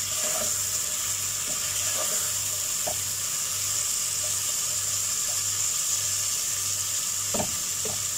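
Mutton and tomato masala sizzling steadily as it is sautéed in a pot and stirred with a wooden spatula, with potatoes frying in a wok alongside. A few light knocks of the spatula against the pot, near the middle and again near the end.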